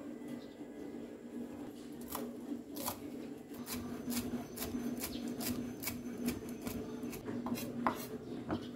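A steady low hum with a run of light, sharp taps or clicks, about two a second, starting about two seconds in.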